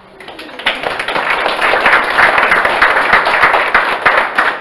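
A crowd applauding: many people clapping, starting up and building to loud, dense clapping within about the first second.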